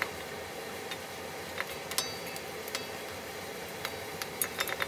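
Beef and vegetables sizzling steadily in a wok, with wooden utensils tapping and clicking against the pan now and then as the food is stirred, several quick clicks near the end.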